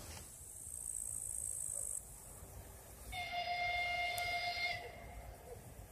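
Diesel train's horn sounding one steady blast about three seconds in, lasting under two seconds, over low wind rumble.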